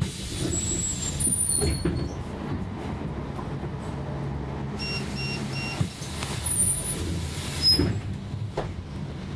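Cabin sounds of a 2009 Hess Swisstrolley 3 trolleybus standing still: a low electrical hum, bursts of hissing and rattling about a second in and louder near the end, and three short electronic beeps about halfway through.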